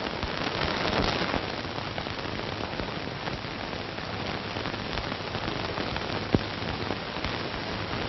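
Steady hiss and crackle of an old film soundtrack, with a scatter of small clicks and one louder click about six seconds in.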